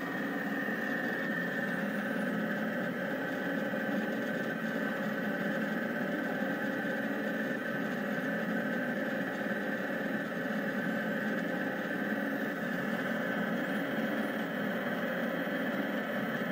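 Rostock delta 3D printer running a print, its stepper motors giving a steady mechanical whine made of several held tones.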